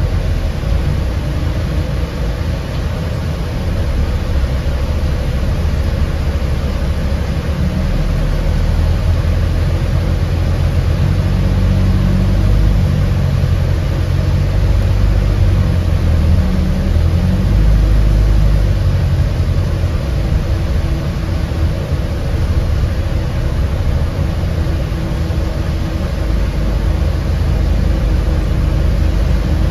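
Interior noise of an Enviro400H City hybrid double-decker bus running: a steady low drivetrain hum and rumble that grows heavier for a while in the middle.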